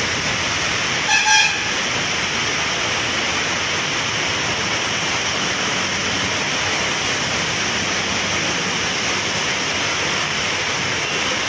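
Heavy rain pouring steadily onto a street, mixed with the hiss of passing traffic on the wet road. A vehicle horn gives a short double beep about a second in.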